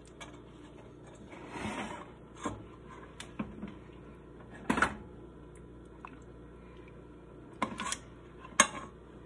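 Cookware and utensils clinking and knocking as a pot of chili sauce is handled over a skillet of pasta: a brief scrape about a second and a half in, then a scatter of sharp clinks, the loudest near the end.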